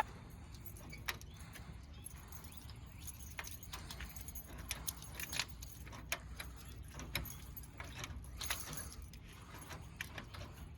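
Faint, irregular light clicks and jingles of small metal objects being handled, over a low background hum.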